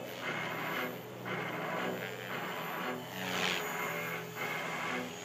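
Background music with a steady beat and a moving bass line.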